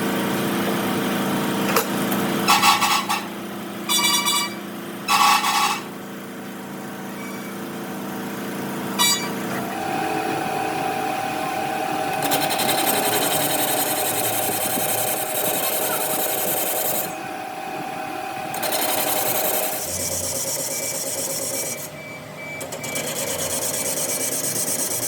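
Workshop power tools running: a steady motor hum with three short, loud bursts of tool noise in the first few seconds, then a steadier, noisier running sound that shifts in level several times.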